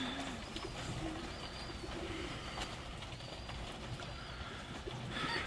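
Homing pigeons cooing: a series of low, repeated coos, with faint high chirps of small birds behind them.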